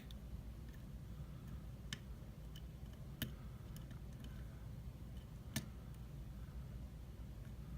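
Small irregular clicks of a lock-pick hook working the pin stacks of an ILCO rim cylinder during single pin picking, with two louder clicks about three and five and a half seconds in. A low steady hum lies under them.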